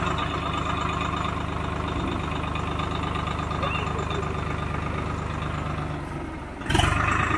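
Tractor engine idling steadily with a regular low pulse. About a second before the end, a sudden louder rush of noise lasts about half a second.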